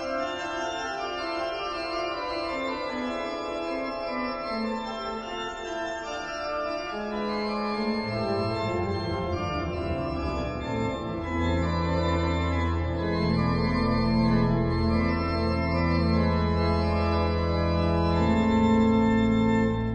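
Organ music with slow, held chords. Lower notes come in about halfway, and deep bass notes join and make it louder toward the end.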